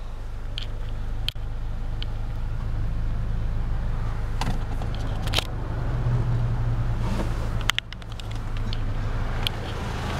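Toyota Tacoma pickup's engine idling with a steady low hum, with a few sharp clicks and knocks from handling the truck over it.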